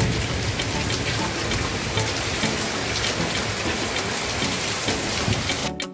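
Heavy rain pouring onto a waterlogged street: a dense, steady hiss with close spattering drops and a low rumble underneath. It cuts off abruptly near the end as music begins.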